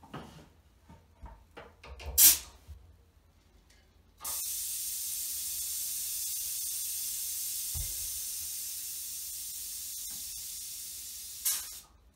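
Bal-Trol pneumatic balancer lowering a 75 lb load. A few clicks and knocks and one sharp burst of air about two seconds in, then a steady hiss of air venting from the control for about seven seconds, fading slightly. It ends in a louder puff and stops suddenly.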